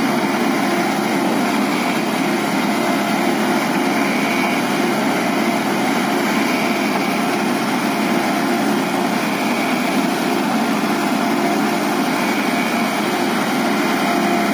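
Diesel engine of heavy earth-moving machinery running steadily at a constant speed, an even drone with no revving.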